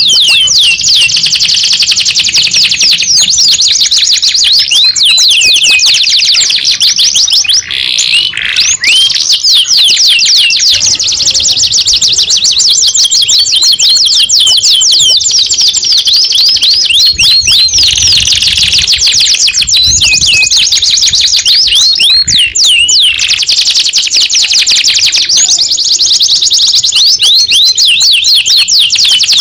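Young domestic canary singing a loud, fast rolling song of rapidly repeated high trill notes, with brief breaks about eight and twenty-two seconds in.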